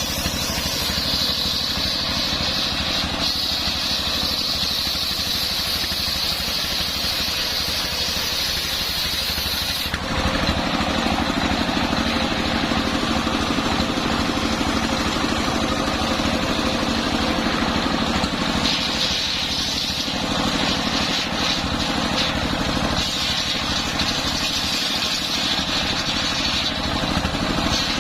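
Homemade engine-driven circular sawmill running steadily while its blade saws through a coconut-palm log, with a high steady tone coming and going as the blade works through the wood.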